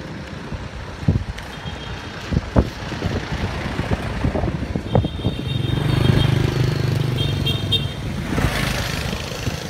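Street traffic: cars and motorbikes passing, with one vehicle's engine humming loudest about halfway through and a rushing swell of noise near the end. Several sharp thumps come early, and clusters of short high beeps sound in the second half.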